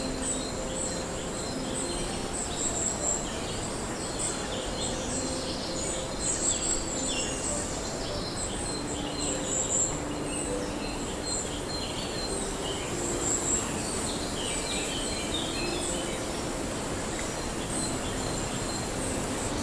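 Forest ambience: many small birds chirping and calling continually, over a steady high-pitched insect drone and a constant hiss of background noise.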